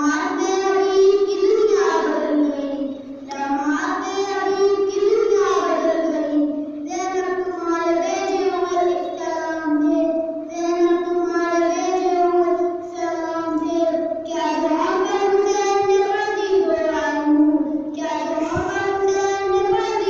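A boy's solo voice chanting a devotional recitation unaccompanied, in long held melodic phrases with short breaks for breath between them.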